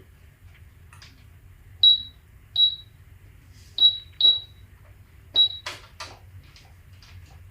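Toy cash register's calculator keypad: buttons clicking as they are pressed, five of them giving a short, high electronic beep, with two louder clacks about six seconds in.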